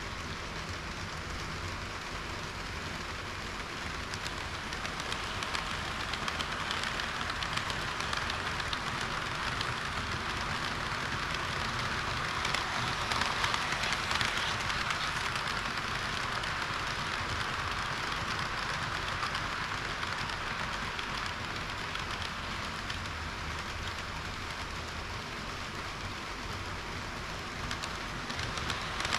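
HO-gauge model train running along its track: a steady hiss and rattle of small metal wheels on the rails, growing a little louder around the middle.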